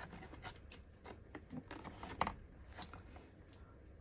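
Wooden chopsticks clicking and scraping against plastic food containers while picking up braised tofu, in scattered light taps with one sharper click about two seconds in.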